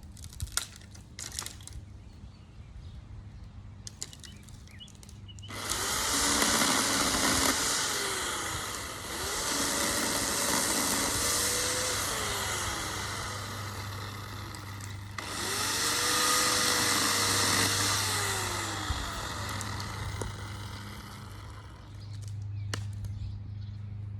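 Chainsaw running steadily, then revved up and cutting wood in three long runs from about five seconds in to about twenty-one seconds in, its pitch sagging and rising as it bites, before it drops back to a steady run.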